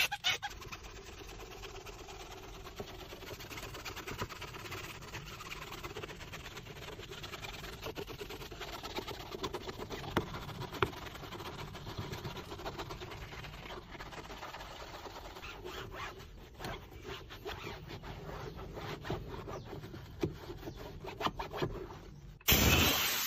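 Scrubbing of foamy cleaner on a car's plastic interior pillar trim: an irregular rubbing and scraping. A loud steady hiss starts suddenly near the end.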